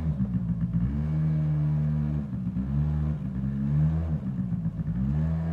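Small youth ATV engine revving up and easing off several times as the rider opens and closes the throttle in short bursts.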